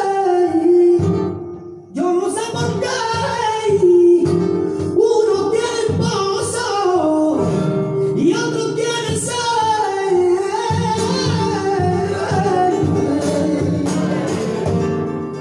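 Flamenco singing por bulerías: a male cantaor sings long lines that bend and waver in pitch, with a short break about two seconds in. A flamenco guitar is plucked and strummed beneath the voice.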